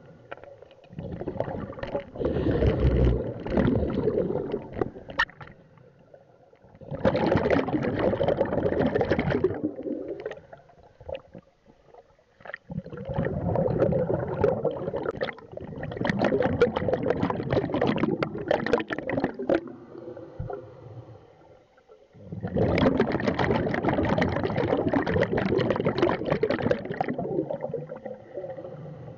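Scuba diver breathing underwater through a regulator: a burst of exhaled bubbles every several seconds, each lasting two to four seconds, with quieter pauses between them.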